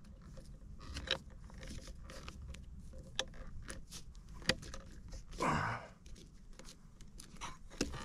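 A plastic push-in cable connector and yellow 12-2 non-metallic cable being pushed into a metal junction box's knockout by hand: scattered small clicks, creaks and scrapes, with a longer scraping rustle about five and a half seconds in.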